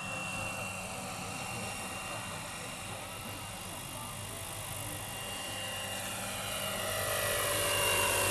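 Radio-controlled scale Airwolf (Bell 222) model helicopter in flight: a steady high rotor and drive whine over a low drone. It grows louder near the end as the model passes close, its tones sliding in pitch.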